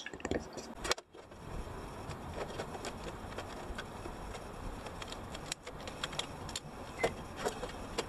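Miniature circuit breaker levers in a household fuse box being flipped one at a time while the right circuit is sought: a few faint scattered clicks over light handling noise.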